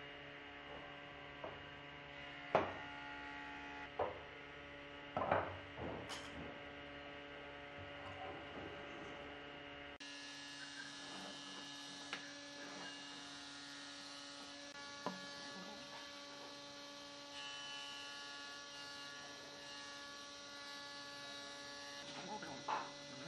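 Steady electrical hum, with a few light knocks and taps of small wooden blocks being handled and pressed together, the loudest about two and a half and five seconds in.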